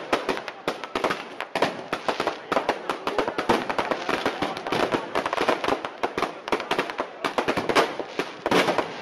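Fireworks display: a dense, continuous crackle of many small bangs and pops, several a second and too many to count, from aerial shells and crackling stars.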